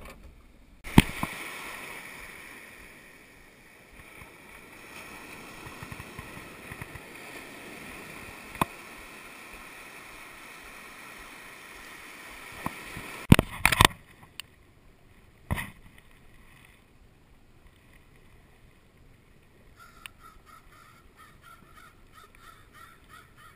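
Surf washing up the beach as a steady rush of water, broken by a few sharp knocks about halfway through. Near the end a crow caws several times in a row.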